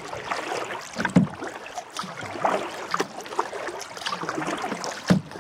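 Double-bladed kayak paddle dipping and pulling through the water as a solo canoe is paddled upstream against the current, with irregular splashes and drips, the loudest about a second in.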